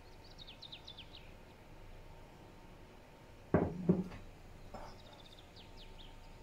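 A glass measuring jug set down on a wooden worktop: two sharp knocks about halfway through, then a softer tap a second later. A bird chirps a quick run of short falling notes at the start and again near the end.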